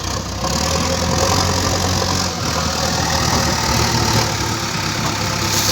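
JCB backhoe loader's diesel engine running steadily, growing louder about half a second in.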